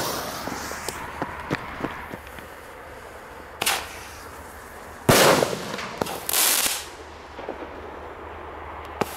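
Homemade 32-shot fireworks cake going off: a few small pops, then a sharp shot at about three and a half seconds, two louder blasts about five and six seconds in, and a last crack near the end.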